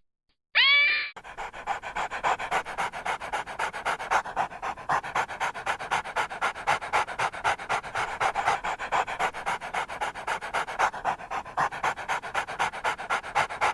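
A short pitched animal call in the first second, then a dog panting rapidly in a fast, even rhythm.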